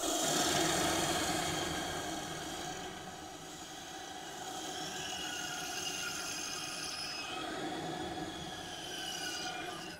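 CNC router spindle whining as a small end mill cuts into a wood board. The cutting noise stays steady, and several high tones shift in pitch partway through as the cut changes.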